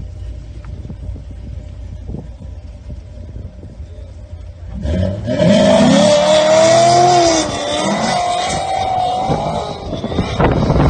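A low steady rumble, then about five seconds in a vehicle engine suddenly revs loudly, its pitch wavering up and down.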